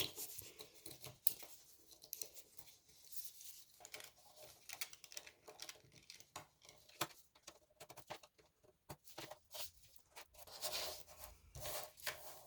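Small 5 mm magnetic balls clicking against each other and scraping as they are separated and moved with a separator card: quiet, irregular clicks and rubbing.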